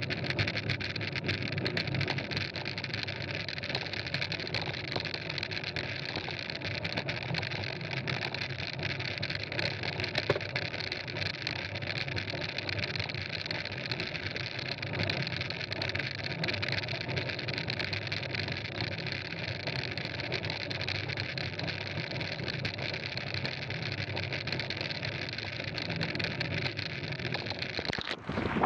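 Steady rush of wind and mountain-bike tyres rolling on gravel, picked up by a moving action camera's microphone.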